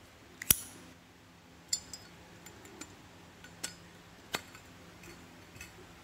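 Sharp metallic clicks and clinks from a brass Zippo lighter being handled as its lid is opened and the insert worked out of the case: one loud click about half a second in, then a few softer clicks and ticks.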